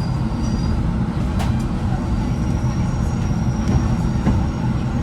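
Steady low rumble inside a coach of a Class 165 diesel multiple unit, from its underfloor diesel engine and running gear, with a few faint clicks and a thin high whine partway through.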